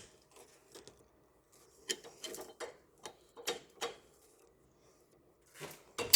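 Flathead screwdriver turning in the reset lock of an Edwards 270-SPO fire alarm pull station: a run of small, scattered metallic clicks and scrapes, with a louder clatter at the very end.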